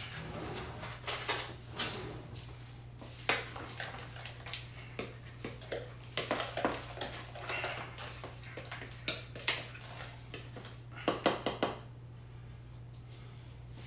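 Plastic batter-bowl pieces knocking and being handled on a countertop, then a fork clicking against a plastic bowl while stirring dry flour and seasonings, with a quick run of clicks near the end. A steady low hum runs underneath.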